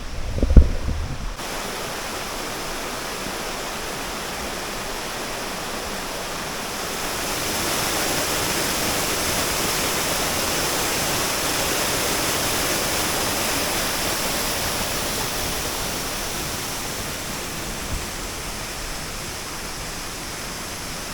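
Waterfall cascading down a rainforest creek: a steady rush of falling water that swells for several seconds in the middle and then eases off. A sharp low thump sounds about half a second in.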